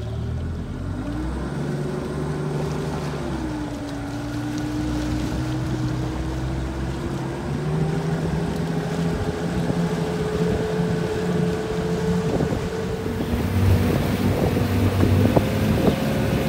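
Yamaha 225 V6 outboard motor running at low harbour speed, pushing the boat along with a steady engine tone that rises about a second in, dips briefly, then climbs slowly. Wind and water noise grow louder in the last few seconds.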